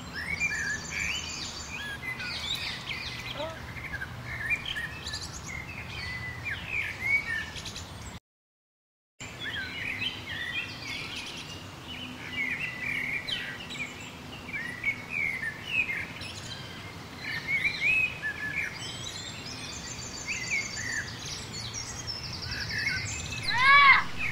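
Birds chirping and calling, many short rising and falling chirps overlapping, with a few rapid high trills. The sound cuts out completely for about a second just after eight seconds in.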